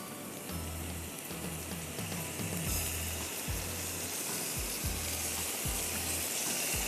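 Cream sauce poured onto hot grilled chicken breasts in a ridged grill pan, sizzling, with the hiss growing stronger from about two seconds in. Background music with a low pulsing beat plays underneath.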